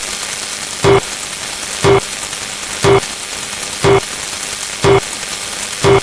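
Sound effects under a steady hiss: a short pitched blip repeats about once a second, at an even rhythm.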